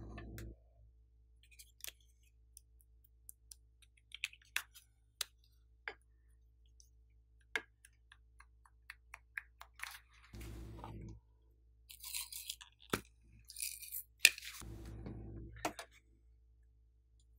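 Light clicks and taps of small plastic containers and lids being handled over a glass slime dish, with a few short soft squishing stretches as slime is squeezed out. A brief patter of sequins being sprinkled on comes about twelve seconds in.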